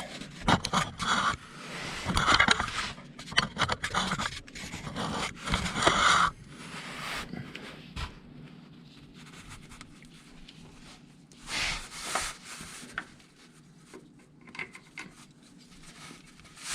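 Hand work on a power steering pressure line fitting: the line is threaded in and turned with a 16 mm wrench, giving irregular scraping, rubbing and small metal clicks. The work is busiest in the first six seconds, then comes in scattered touches with a short flurry about twelve seconds in.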